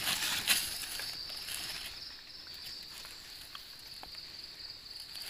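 Steady high-pitched chirring of night insects such as crickets, with rustling and light crackles of dry leaf litter as gloved hands dig mushrooms out with a knife. The rustling is loudest in the first second.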